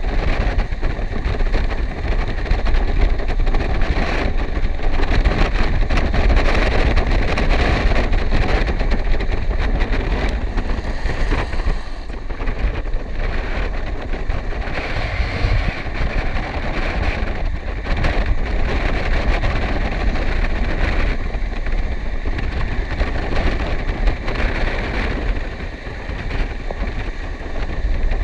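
Wind rushing over the microphone during a fast downhill run on inline skates, with the hiss of the skate wheels rolling on wet asphalt. Steady throughout, with a heavy low rumble.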